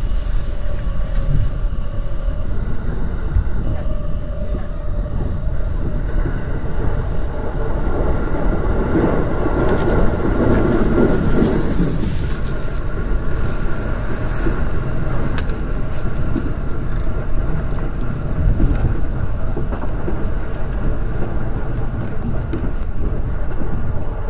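E231 series electric train running, heard from inside a cab at the coupling between two units: a steady rumble of wheels on rail, swelling louder for a few seconds in the middle.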